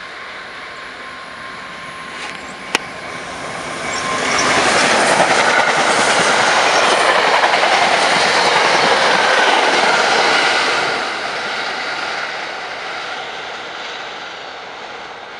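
Diesel-hauled commuter train of passenger coaches passing at speed. The rail and wheel noise builds about four seconds in, stays loud for several seconds as the cars go by, then fades as the train runs away. A single sharp click comes just before the noise builds.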